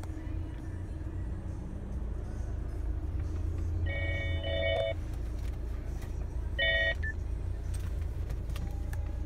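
Audi Q3's engine idling, a steady low rumble heard from inside the cabin. Two short electronic beeps sound over it, one about four seconds in and a shorter one a couple of seconds later.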